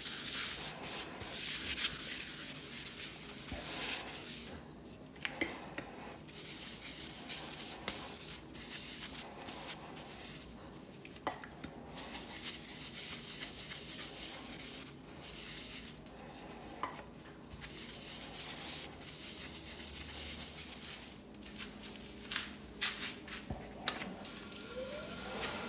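Paper towel rubbed by hand over the inside of a brown mallee burl bowl, in repeated wiping strokes with short pauses. Near the end there is a sharp click, then a rising whine as a wood lathe spins up.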